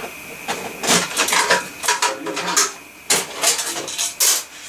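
A screw being driven out and a board being worked loose from a metal computer chassis: a quick run of clicks, scrapes and metal rattles, starting about a second in. A faint steady high whine runs underneath.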